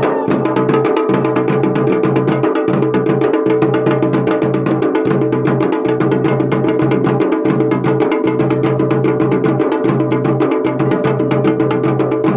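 Fast, even drumming over a steady droning tone, played as music for a devta dance in a Pahadi devotional puja.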